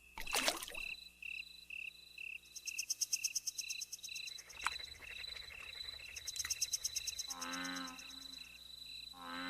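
Insects chirping in a steady pulsing rhythm, about three pulses a second, with a high buzzing trill above them. Two short animal calls come near the end, and a brief whoosh comes just after the start.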